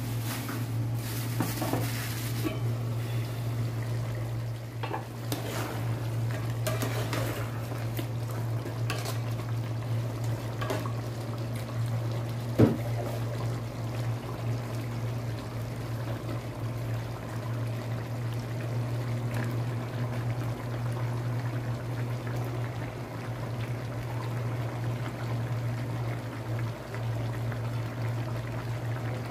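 Chicken stew simmering in an aluminium pot over a steady low hum, with clatter from the metal pot and lid and eggplant slices being dropped in. A sharp knock on the pot about twelve seconds in is the loudest sound.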